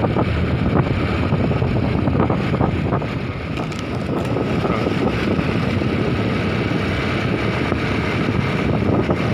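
Steady wind noise on the microphone of a moving two-wheeler, mixed with the rumble of its engine and tyres on the road.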